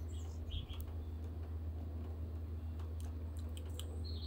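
Faint outdoor background: a steady low hum with a few faint ticks and short high chirps.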